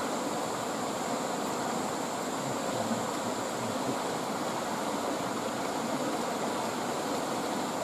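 Small river rushing steadily over rocks and riffles.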